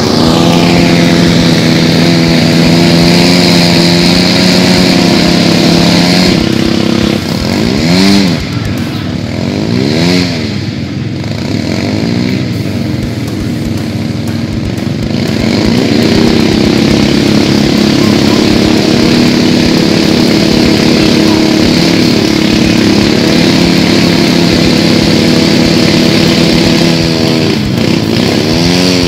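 Side-by-side UTV engine revved hard and held high while its wheels spin in deep mud without getting out. The revs drop and surge several times about a third of the way in, hold high again for a long stretch, then fall away near the end.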